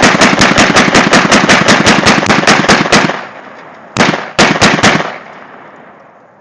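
AK rifle firing a rapid string of shots, about six a second, for roughly three seconds. After a second's pause it fires a quick group of about four more, and the echo trails off.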